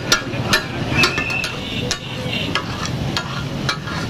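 Metal spatulas striking and chopping minced kidneys on a flat griddle in the taka tak style, about two irregular clacks a second, over the sizzle of frying.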